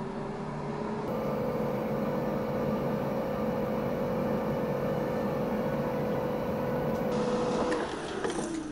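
Air fryer's fan running with a steady hum, then winding down, its pitch falling, as the lid is lifted near the end.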